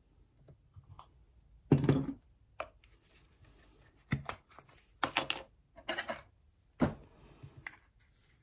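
Short clicks and clatters of a small plastic solder case and hand tools being handled on a jeweller's soldering bench, about seven in all, the loudest about two seconds in.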